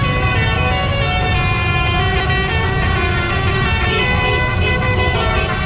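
Many horns honking and tooting at once, long overlapping blasts over the steady rumble of dense street traffic: celebratory honking.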